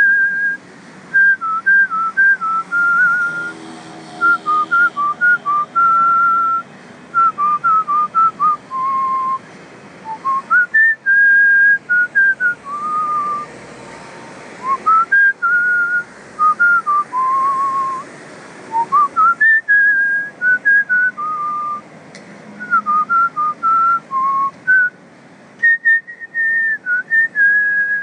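Background music of a whistled tune: one melody line picked out in short phrases with brief pauses between them.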